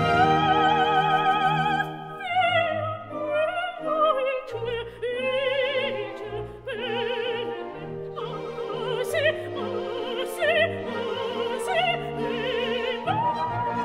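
Operatic soprano singing a coloratura passage with orchestral accompaniment, in broken phrases with quick running figures, then taking a long high note near the end.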